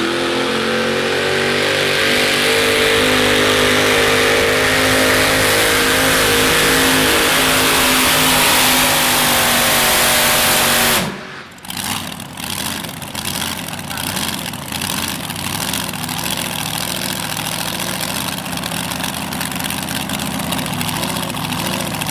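Supercharged Chevrolet V8 of a modified pulling tractor running flat out under load as it pulls the sled, its pitch climbing and then holding. About eleven seconds in the full-throttle run stops abruptly, and another pulling tractor's engine is heard idling with a pulsing beat.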